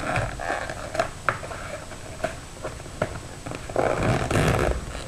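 Hands prying at a small cardboard trading-card box: scattered clicks and taps, then a louder stretch of scraping, rustling cardboard near the end.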